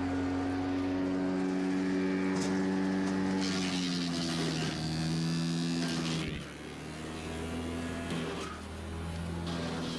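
Vermeer BC600XL brush chipper's 25-horsepower gasoline engine running. From about three and a half seconds in, brush is chipped with a harsh rushing, crackling noise while the engine pitch sags under the load; after about six seconds the chipping stops and the engine runs on more quietly.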